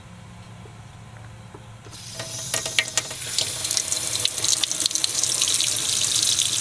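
Sink faucet turned on about two seconds in, running hot water into the basin and splashing, louder as the flow builds. Under it, a low steady hum.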